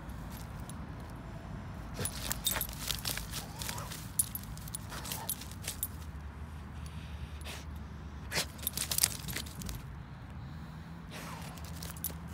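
Dog's metal collar tag and leash clip jingling in clusters as the dog digs and noses into a hole in dry grass and soil, with scratching in the leaf litter. The clusters come at about two to four seconds, around five seconds and at eight to nine seconds, over a steady low hum.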